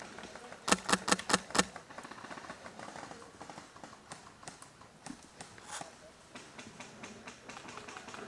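Airsoft gun firing a quick string of about six sharp shots about a second in, followed by scattered fainter clicks of more distant shots.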